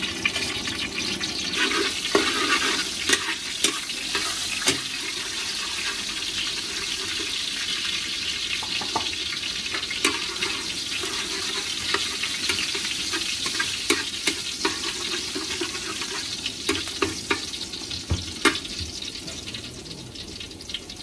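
Minced garlic sizzling in hot oil in a steel wok, with a steady hiss. It is stirred with a metal spatula that scrapes and clicks against the pan now and then. The sizzle eases a little near the end.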